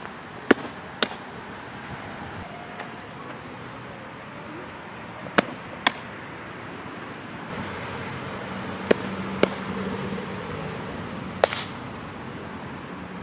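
Windmill softball pitches: sharp pops in pairs about half a second apart, as the ball is thrown and then smacks into the catcher's mitt, heard three times, with a single pop near the end. A low steady hum joins about two-thirds of the way through.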